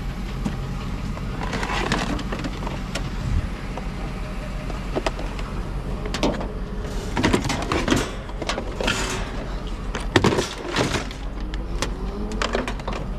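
Idling truck engine with a steady low hum. Through the second half comes a run of sharp metal clanks and knocks as scrap metal is handled and loaded into the truck, the loudest a little after the middle.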